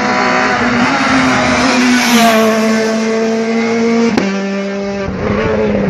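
Rally car engine running hard at high revs as the car comes up the road and passes close by, loudest about two seconds in. About four seconds in the sound cuts suddenly to another rally car's engine at a steady high note.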